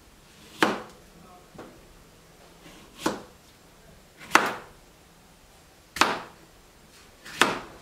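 Kitchen knife slicing a cucumber into rounds on a cutting board, with a sharp knock each time the blade goes through: five strong knocks about a second and a half apart and a fainter one between the first two.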